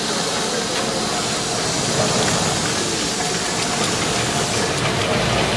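Steady hiss of steam venting from the whaling station's plant, with a low rumble coming in near the end.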